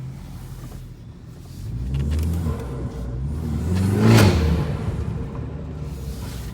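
Tuned BMW 330i (G20) turbocharged four-cylinder engine revving up and down a few times, with the highest and loudest rev about four seconds in before it falls back.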